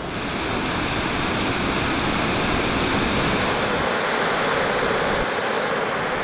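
Steady rushing of a large, powerful waterfall: a dense, even noise of falling water that swells up at the start and holds with no breaks.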